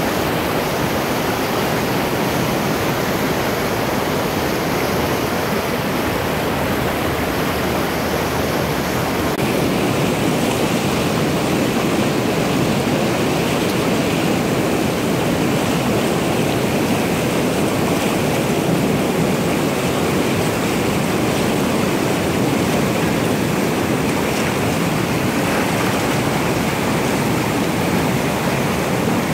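Mountain river in spate, swollen with snowmelt, rushing white over boulders and rapids: a loud, steady roar of water.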